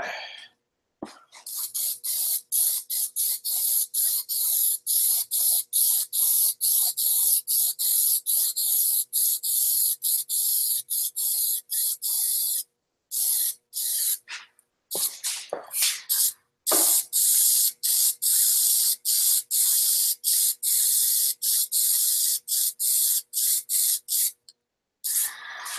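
Aerosol can of Plasti Dip rubber coating spraying, a loud hiss held for about eleven seconds, then, after a break of a few seconds, for about seven more. These are the passes of a fresh coat being laid onto a car grille.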